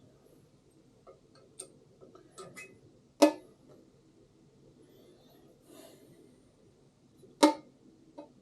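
Two sharp metallic knocks about four seconds apart, each ringing briefly, with lighter clicks and taps between, from metal valves and tools being handled on a diesel cylinder head.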